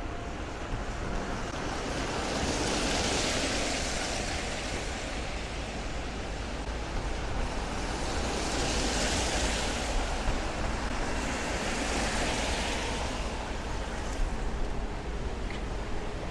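Cars driving past on a wet road, their tyres hissing through surface water, swelling three times a few seconds apart over a steady low traffic rumble.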